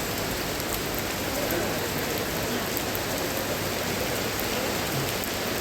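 Heavy rain pouring down in a steady hiss, with scattered sharper ticks of drops striking close by.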